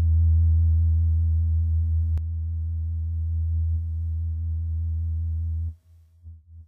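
A steady low electronic tone, one sustained note with a stack of overtones, that cuts off sharply about a second before the end, with a faint click a couple of seconds in.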